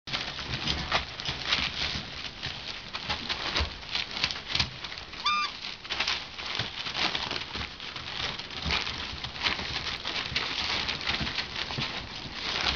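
Rough collie puppies scuffling and playing on newspaper: paper rustling and crinkling, paws pattering, and a short high squeak about five seconds in.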